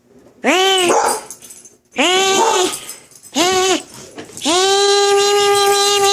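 A dog baying: three short howls, each rising then falling, then one long, steady howl of about two seconds.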